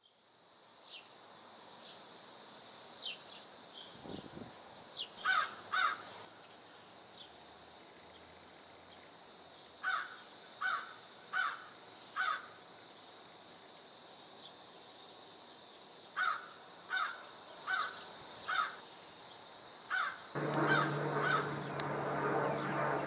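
A bird cawing in runs of two to four harsh caws over a steady high insect-like buzz. About twenty seconds in, the low, steady drone of a four-engine turboprop aircraft, a C-130 Hercules, passing overhead comes in and stays.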